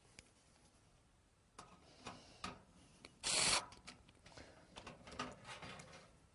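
Fan screws being driven through a 92 mm case fan into a metal PC case with a screwdriver: scattered clicks and scraping, a louder rasp a little over three seconds in, then a run of quick ticks as the screw turns.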